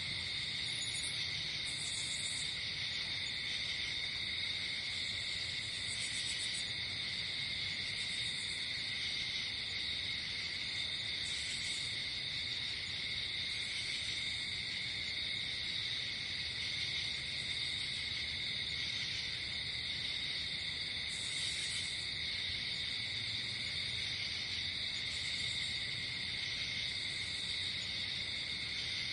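Night-time insect chorus: a steady, unbroken trill, with short higher-pitched insect calls every few seconds.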